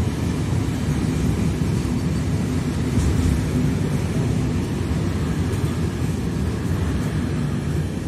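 Intermodal freight train of pocket wagons loaded with lorry trailers passing close by at speed: a loud, steady rumble of wheels on the rails.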